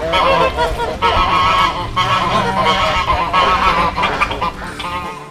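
A flock of ducks calling, many short quacks overlapping one another.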